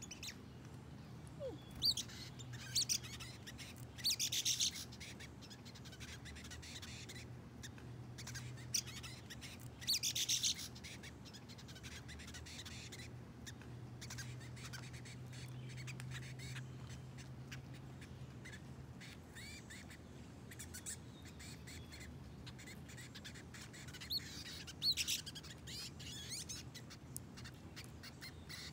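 Brown-headed nuthatches giving high, squeaky chirps in short scattered bursts, with a steady low hum underneath.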